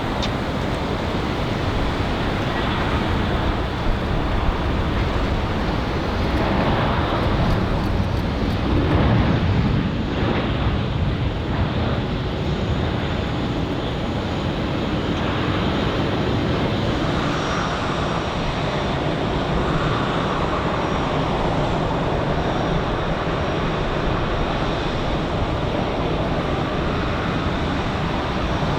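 Jet airliner engines on landing. An Airbus A320 passes, loudest about a third of the way in with a falling sweep in pitch. Near the end a Boeing 737-8 is heard coming in to land.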